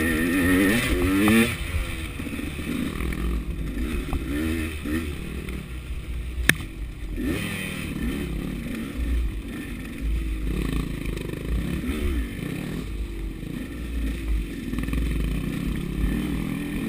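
KTM 200 two-stroke dirt bike engine running on and off the throttle, its revs rising and falling again and again, with the bike clattering over rough trail. There is a single sharp knock about six and a half seconds in.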